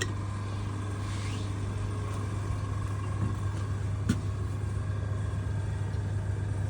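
A steady low mechanical hum, with a brief click about four seconds in.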